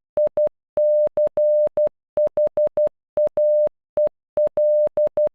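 Computer-generated Morse code: a single steady beep keyed in short dots and long dashes, sounding the letters I C H A E L of MICHAEL (.. -.-. .... .- . .-..). The beeps stop a little before the end.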